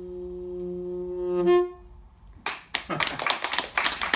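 Tenor saxophone holding one long final note, swelling to a loud accent and cutting off about a second and a half in. After a brief pause, the audience starts applauding about two and a half seconds in.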